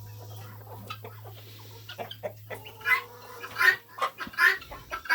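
A hen clucking in a series of short calls, most of them from about three seconds in, over a steady low hum that stops shortly before the end.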